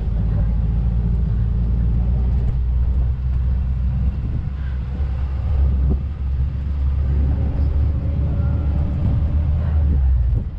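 Low, steady rumble of a car engine and road noise, heard from inside a moving car.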